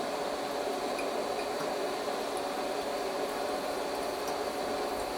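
Steady hum and hiss of the lit blacksmith's forge, with a few faint ticks.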